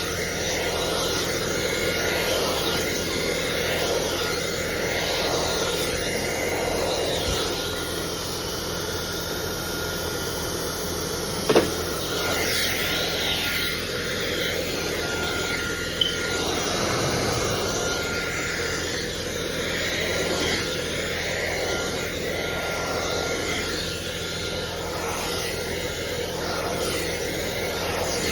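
A handheld blow dryer runs steadily, a loud rush of air with a faint whine. Its tone wavers as it is worked through the hair. Two sharp clicks come about five seconds apart near the middle.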